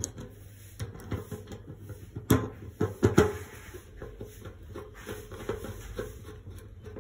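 Phillips screwdriver tightening the screws of a fuel gauge fitted to a generator's fuel tank: scattered small clicks and scrapes, with a few sharper knocks about two and three seconds in, over a low steady hum.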